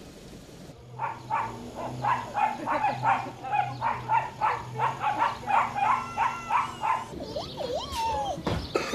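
A dog barking in a rapid, regular series, about three barks a second, starting about a second in and stopping near the end.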